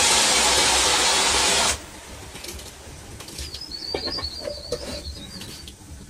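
Steam hissing loudly and evenly from a pot of dal cooking on the stove, cutting off suddenly after about two seconds. After that it is much quieter: a few light clicks, and a short run of high bird chirps in the middle.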